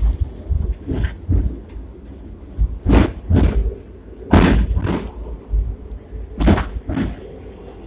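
Hong Kong seventh-generation tram running along the street track, its wheels knocking over rail joints in pairs of sharp thumps about half a second apart, several times over a low running rumble.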